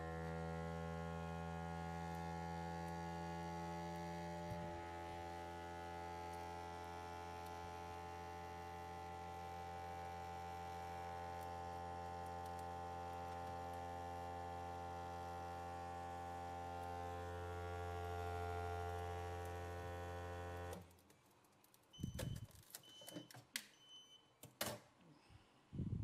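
Vaquform DT2 vacuum forming machine's vacuum pump running steadily at one pitch as it sucks the heated PETG sheet down over the mould. It cuts off suddenly about 21 seconds in, followed by a few short beeps and sharp clicks and knocks as the forming frame is handled.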